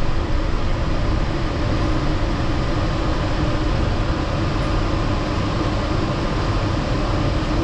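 Yurikamome Line rubber-tyred automated train running, a steady low rumble inside the car.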